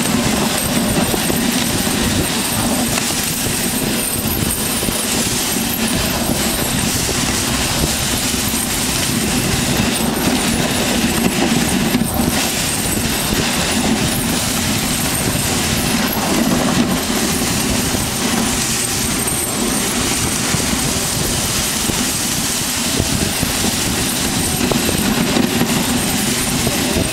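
Dog sled runners scraping and rattling over rough glacier ice as the team pulls, a steady loud noise full of small rapid jolts from the sled, which has no suspension.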